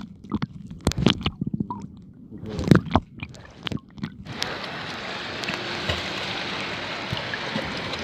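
Sea water sloshing and gurgling, muffled, with scattered knocks for about four seconds, then a steady hiss of sea and wind.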